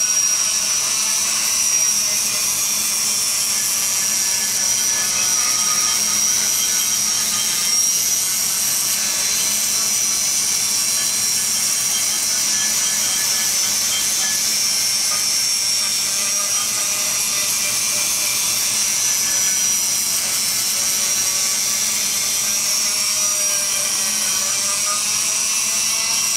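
High-speed rotary grinder spinning an abrasive sanding roll inside the exhaust port of an aluminium LS1/LS2 cylinder head, grinding and smoothing the cast port walls. It runs with a steady high whine whose pitch wavers a little as the roll bears on the metal.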